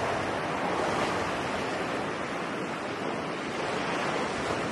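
Ocean surf: a steady rush of waves washing ashore, starting suddenly as a sound bed.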